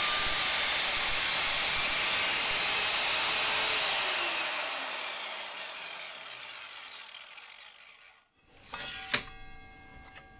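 Evolution R185SMS sliding mitre saw running through a PVC plastic pipe, then the trigger released and the motor and blade spinning down with a falling whine until they stop. A single sharp knock follows about a second later.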